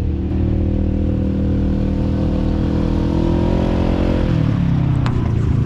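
Polaris RZR side-by-side engine running under way, its pitch climbing gradually and then dropping about four seconds in as it slows or shifts. There is a sharp click near the end.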